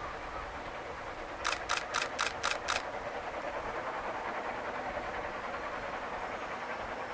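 Narrow-gauge steam train running along the hillside at a distance, a steady even noise. About a second and a half in, a quick burst of six sharp clicks, about five a second, stands out above it.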